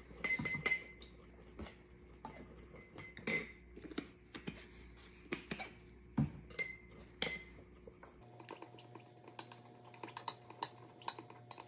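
A metal spoon clinking and tapping against a small glass bowl in irregular, scattered clinks while a sauce is stirred.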